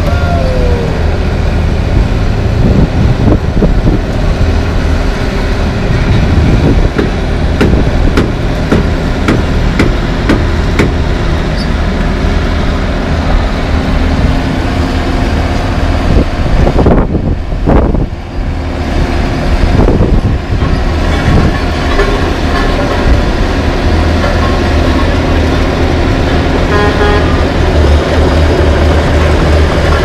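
LeeBoy 8515B asphalt paver's diesel engine running steadily, with occasional short knocks over it.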